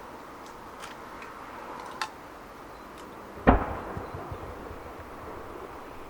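An aerial firework shell bursts with one loud bang about three and a half seconds in, followed by a low rumbling echo. A couple of small sharp pops come before it, the clearest about two seconds in.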